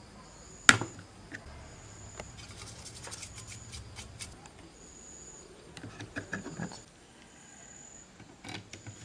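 Handling of laptop parts: one sharp click a little under a second in, then scattered light clicks and taps of plastic and metal pieces being moved.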